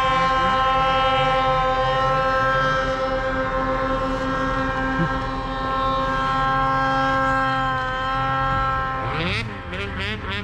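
Snowmobile engine running at a steady high pitch under throttle while the sled climbs through deep powder. About nine seconds in it eases off, getting quieter, and the pitch wavers up and down.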